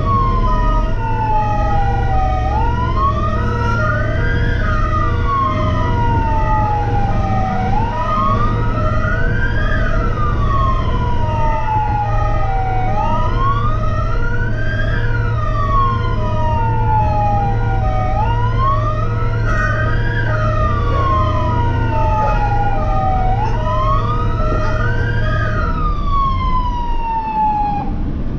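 Emergency rescue vehicle's wailing siren heard from inside the cab, its pitch rising for about two seconds and falling for about three, repeating about every five seconds, with a steady beeping and the engine's low hum beneath. The siren cuts off near the end.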